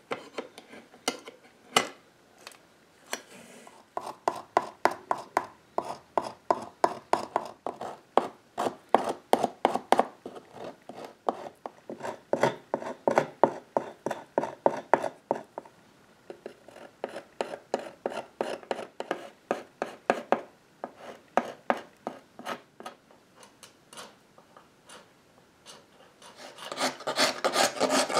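A few sharp clicks at first, then a hand scraper pulled in repeated strokes, about two a second, across the back of an old wooden molding, scraping off old glue and wood fibres. A faster, louder run of strokes comes near the end.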